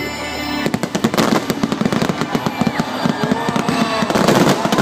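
Fireworks barrage: a rapid, dense string of crackling bangs, many a second, starting about a second in and stopping just before the end. Show music plays at the start.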